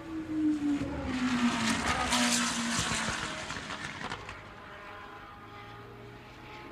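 Formula One car passing at speed. Its engine note drops in pitch as it goes by, it is loudest about two seconds in, and then it fades away.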